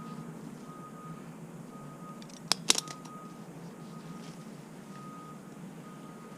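Backup alarm beeping at an even pace, about one beep a second, over a low engine idle. Two sharp knocks about two and a half seconds in.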